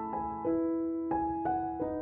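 Background piano music: soft single notes and chords played a few a second, each ringing on.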